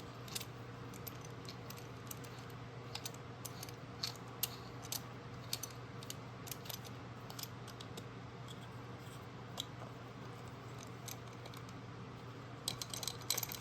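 Scattered light clicks and taps of small parts being handled and fitted together, growing quicker near the end, over a steady low hum.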